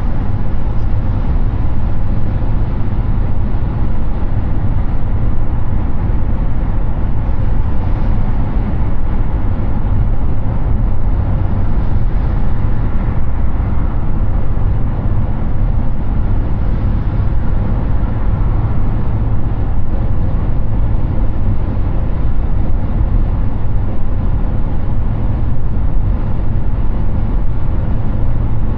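Steady road noise from a Hyundai Ioniq 6 electric car cruising on a highway: an even rush of tyre and wind noise with a deep rumble underneath.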